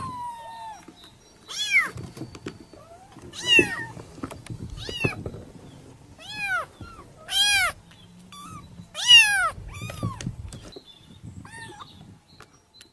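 A cat meowing repeatedly: about seven or eight short, high meows a second or two apart, each rising then falling in pitch, the loudest about nine seconds in and fainter ones near the end.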